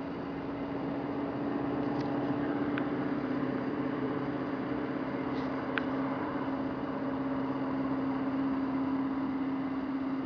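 Steady low mechanical hum with a constant droning tone, like a running engine, with a few faint short high ticks about two and six seconds in.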